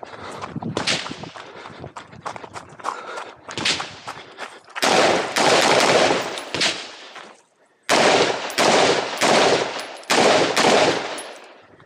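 Semi-automatic rifle fired in fast strings: a long run of closely spaced shots about five seconds in, then, after a short pause, four or five more quick strings, each shot echoing off the berms. The first few seconds hold only quieter scattered clicks and knocks.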